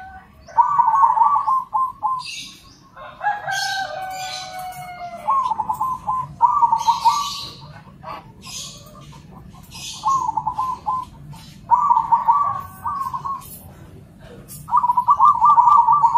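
Zebra doves (perkutut) cooing and answering one another in a series of about seven rolling, trilled phrases, each lasting a second or so. Shorter falling calls and high chirps come in between.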